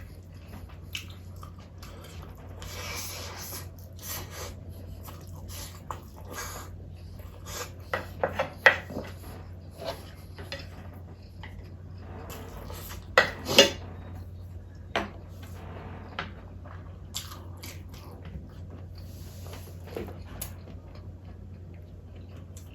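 Cutlery clinking and scraping against bowls and dishes during a meal, in scattered clicks with louder clatters about eight and thirteen seconds in. A low steady hum runs underneath.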